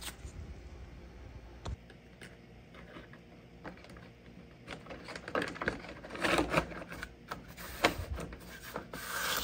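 Irregular rubbing, scraping and clicks of a gloved hand handling and fitting a body-filler-coated shell onto an RC snowmobile chassis, busiest about five to seven seconds in, with a few sharp clicks.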